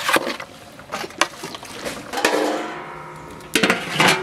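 Metal ladle clanking and scraping against a large aluminium cooking pot while vegetables are stirred, one strike leaving the pot ringing for about a second. Near the end a metal lid clatters onto the pot in several quick knocks and rings on.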